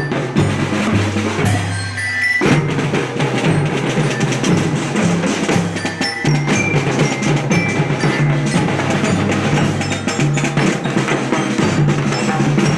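Elementary-school marching band playing: drums with a melody on mallet bells, with a short break about two seconds in before the playing picks up again.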